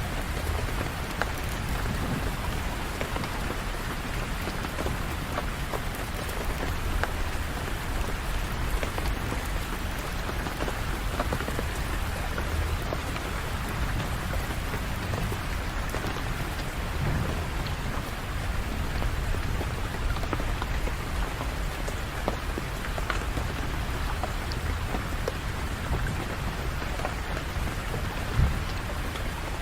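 Steady rain falling, with individual drops ticking over an even wash of noise and a low rumble underneath. One louder drop strikes near the end.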